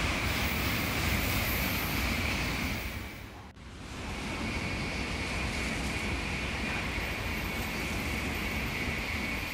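Shinkansen bullet train passing at speed: a loud, steady rushing noise of air and wheels with a high steady whine over it. It breaks off suddenly about three and a half seconds in and picks up again.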